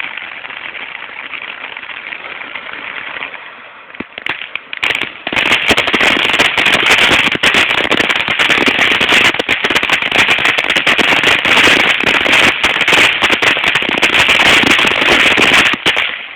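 Firework crackling and popping in a dense, rapid stream of small bangs. It is softer for the first few seconds, thins out briefly, then turns loud and steady for about ten seconds before stopping suddenly near the end.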